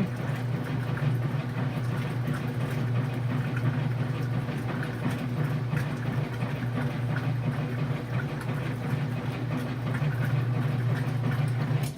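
Kenmore 500 top-load washing machine agitating a load of clothes in water: a steady motor and transmission hum with light ticking and no grinding. The grinding noise is gone after the clutch and agitator repair.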